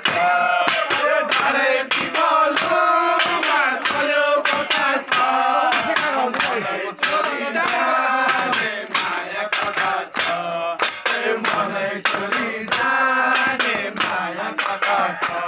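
A group of voices singing a traditional Nepali folk song together, with sharp beats keeping time.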